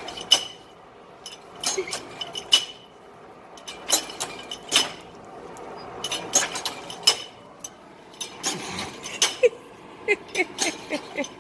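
Blacksmith's hammer striking hot iron on an anvil while forging a towel bar: irregular metallic blows, each with a short bright ring.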